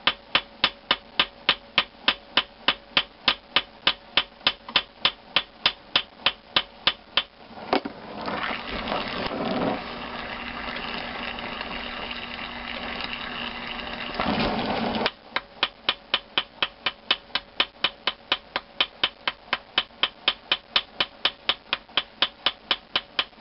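Ball-peen hammer striking the hot tip of a valve stem clamped in a vise, rapid, even light blows about four a second, peening the stem over to hold the press-fit valve head. About eight seconds in the hammering stops for some seven seconds of steady oxy-acetylene torch hiss reheating the head, then the quick blows resume.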